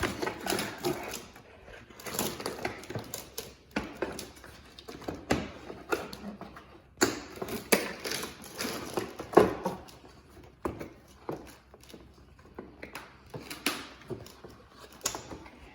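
Irregular knocks, clicks and clatter of car bumper parts being handled and pushed into place, with a few louder knocks.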